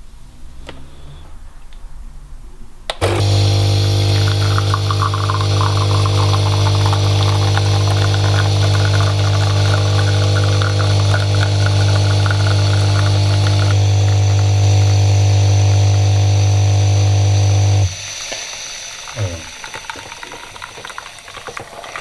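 Single-cup pod coffee maker brewing: its pump starts suddenly about three seconds in with a loud, steady hum and hiss as coffee streams into the mug, then cuts off abruptly a few seconds before the end.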